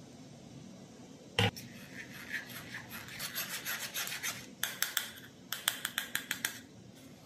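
A single sharp knock a little over a second in, then a metal spoon scraping and rubbing against the mesh of a stainless steel sieve in quick strokes, several a second, pressing the banana-egg pudding mixture through.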